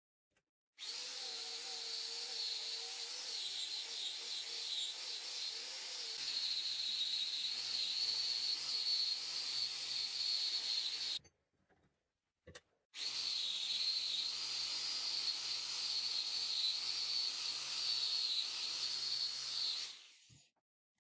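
Rotary wire brush on a power tool scrubbing rust off a steel hatchet head: a steady hissing scrape over a wavering motor whine, broken by a few short silent gaps.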